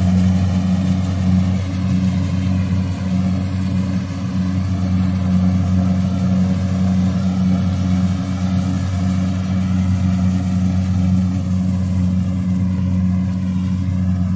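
Kubota rice combine harvester's diesel engine running steadily under harvesting load, a continuous low drone with the rattle and hiss of the cutting and threshing machinery over it.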